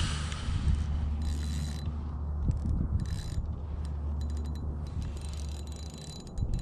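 Fishing reel being cranked steadily while a fish is played on a bent rod, its gears giving a low whirring hum that fades shortly before the end.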